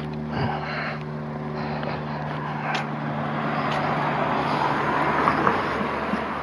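A car passing on the street, its tyre and engine noise building to loudest about five seconds in and then easing off, over a steady low hum that fades after about three seconds.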